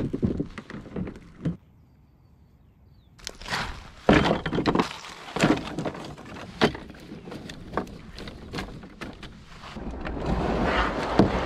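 Camping gear being loaded into a canoe: a series of hard knocks and thunks as a plastic barrel goes into the hull, then dry wooden sticks of firewood clattering as they are stacked in. Near the end comes a louder, steadier scraping rush as the canoe is pushed off from the shore.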